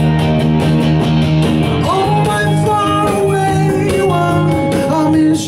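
Live band music: a slow pop-rock song with a steady drum-machine beat and bass, and long held melody notes from about two seconds in.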